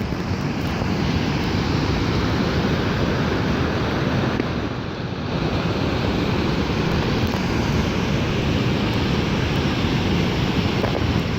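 Steady rushing noise of wind and water in a rainstorm, easing briefly about five seconds in.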